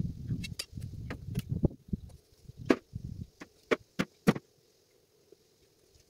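A run of sharp knocks of a hand tool striking wood during fence repair, coming about three a second in the middle, over low rustling at the start, then stopping.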